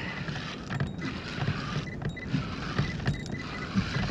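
Sea water slapping against a kayak's plastic hull, irregular low knocks in a steady noisy wash.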